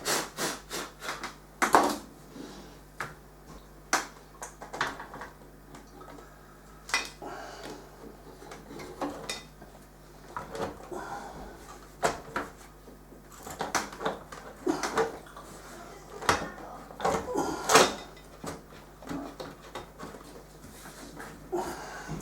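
Irregular clicks, knocks and clatters of a Macintosh SE/30's parts being handled during reassembly, the loudest knock near the end, over a faint steady hum.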